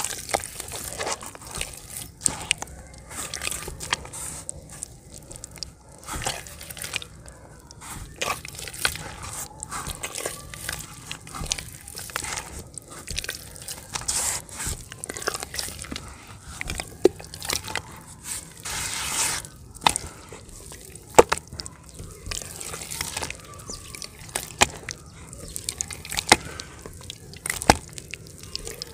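Hands squeezing and kneading soaked yellow dirt in a bucket of muddy water. There is irregular wet squelching and sloshing, with sharp crackling clicks scattered throughout.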